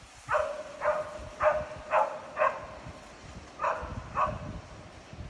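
A dog barking seven times: five barks about half a second apart, a short pause, then two more.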